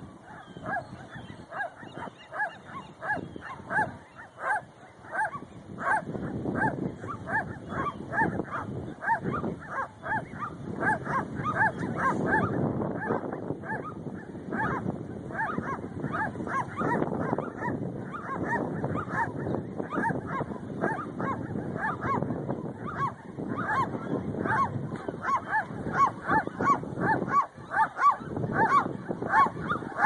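Western gulls calling in a long unbroken run of short, repeated calls, two or three a second.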